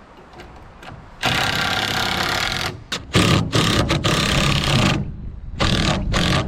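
Power tool run in bursts: one run of about a second and a half, then a string of short bursts and one more near the end.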